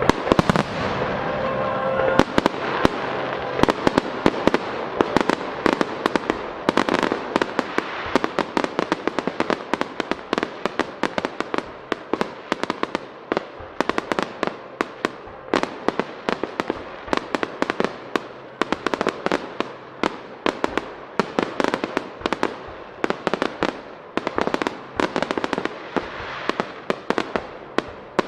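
Starmine barrage of aerial firework shells bursting in rapid succession: many sharp bangs a second over continuous crackle. Music heard at the start stops about two seconds in.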